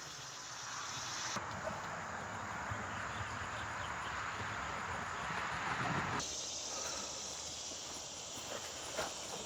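Steady outdoor insect chorus, an even hiss of crickets or cicadas. Its level and tone change abruptly about a second and a half in and again about six seconds in.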